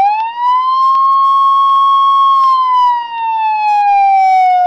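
A loud siren wail: one long tone that rises over about a second, holds, then slowly falls.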